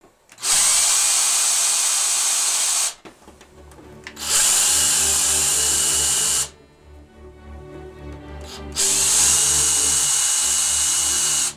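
Skil cordless drill driving screws: the motor runs at steady speed with a high whine in three bursts of about two and a half seconds each, with short pauses between them.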